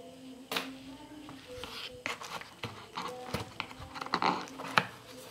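Hands handling a cardboard box and its foam insert: a series of clicks, scrapes and rustles, loudest about four to five seconds in.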